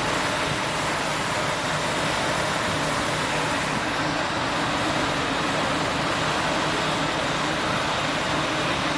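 Steady drone of a fire truck's engine running, with an even hiss over it.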